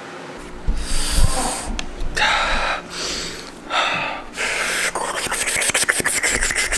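A person breathing hard in three sharp, noisy gasps, reacting to the burn of a habanero pepper, followed by a run of crackling handling noise on the microphone.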